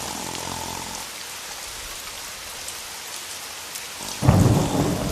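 Steady rain hiss, with a loud low rumble of thunder breaking in about four seconds in.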